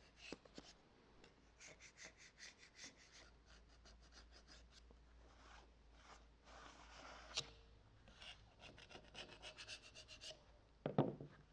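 Faint runs of quick rubbing and scraping strokes, a few a second, from the old gasket being scraped off and the bypass valve's sealing face on the gear pump housing being cleaned. A single click comes about halfway through, and a soft thump comes near the end.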